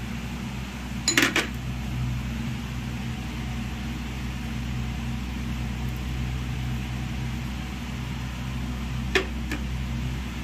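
Steady low hum, with a sharp clink of a small glass bowl against a steel mixing bowl about a second in and two lighter clinks near the end.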